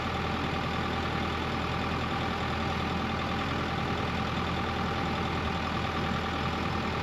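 Bobcat E55 compact excavator's diesel engine running steadily at a low idle.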